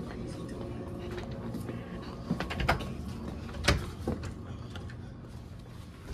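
A door being opened and let shut, a few sharp clicks and knocks about halfway through, the loudest near the middle, over a steady low hum.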